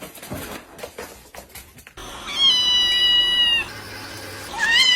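Domestic cat meowing: a long, high, even meow about two seconds in, then a shorter meow near the end that rises and falls in pitch.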